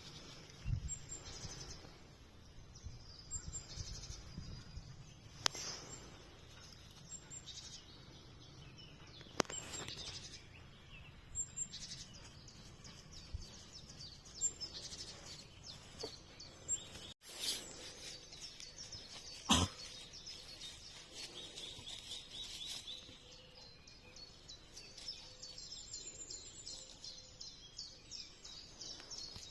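Birds chirping with many short, high calls over faint outdoor background noise, with a few sharp clicks, the loudest about twenty seconds in.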